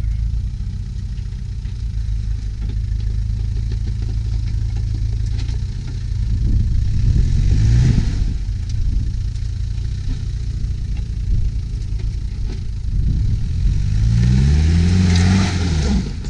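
First-generation Land Rover Discovery engine pulling under load up a steep rock slab, running low and steady, then revving up about halfway through and again, longer, near the end before dropping back.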